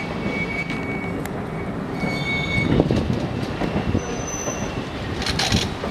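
Train wheels rumbling along the rails at slow speed, with thin high-pitched wheel squeals coming and going and a short hiss near the end.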